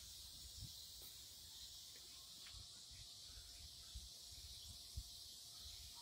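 Faint, steady high-pitched chorus of crickets chirping, with a few soft low thumps on the microphone, the strongest about five seconds in.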